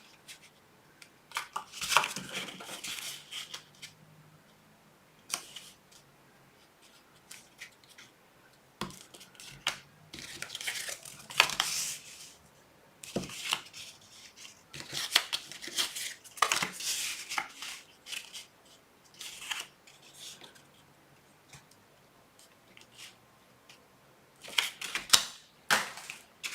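Paper and cardstock being handled and worked by hand, in short irregular bursts of rustling, scraping and snipping separated by quiet gaps.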